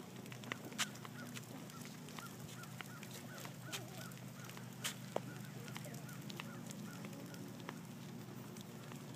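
A bird calling in a run of short repeated notes, about three a second, that stops near the end, with scattered clicks from the camera being carried and a steady low hum underneath.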